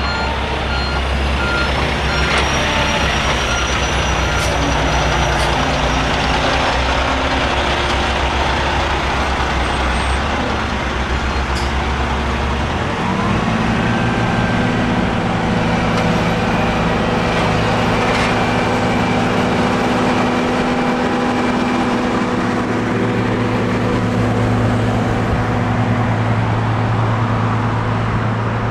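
Diesel engines of a dump truck and a road-paving machine running together in heavy, steady noise, with a reversing beeper briefly at the start. About 13 seconds in, the low engine rumble gives way to a steadier engine hum.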